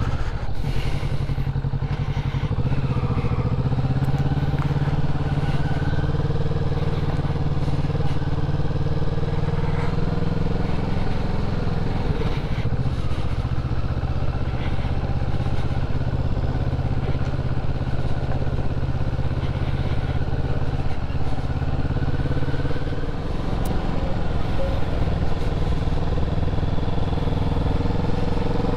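Engine of the vehicle being driven, running steadily while cruising through town streets, its note shifting slightly and dipping briefly near the end.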